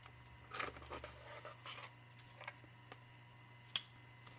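Faint rustling and small clicks as a watercolour set's box and packaging are handled and opened, with one sharper click near the end.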